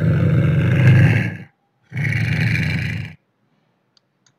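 Lynx growling: two long growls, the second ending about three seconds in.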